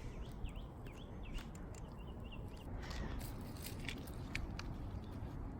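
Small birds chirping in short repeated notes over a steady low wind rumble, with a few light clicks.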